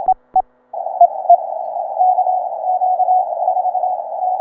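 Ten-Tec Eagle ham transceiver in CW mode. A couple of the operator's own keyed Morse sidetone beeps come first, then about three-quarters of a second in the receiver opens to a steady narrow-band hiss, through which another station's weak Morse code beeps faintly.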